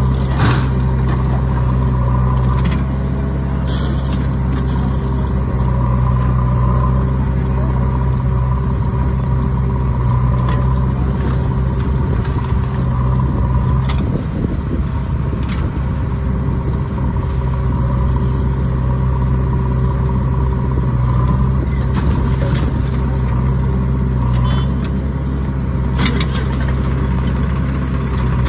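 Diesel engines of a JCB 3DX backhoe loader and a Swaraj 742 XT tractor running steadily as the backhoe loads soil into the tractor's trailer. A few short knocks come through over the engine noise.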